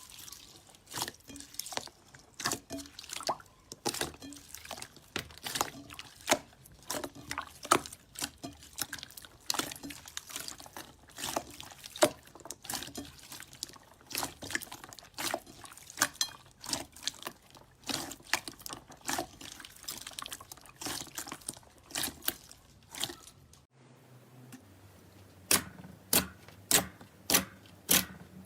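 Slime being squeezed and played with by hand, making a dense, irregular run of wet clicks and pops. Near the end the clicks turn sharper and more regular, about two or three a second.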